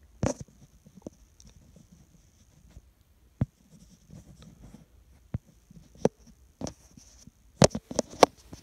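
Handling noise from a smartphone as a Moment clip-on lens is twisted off its case mount and another lens fitted: scattered clicks and knocks of fingers, lens and case close to the phone's microphone, with a quicker run of louder clicks near the end.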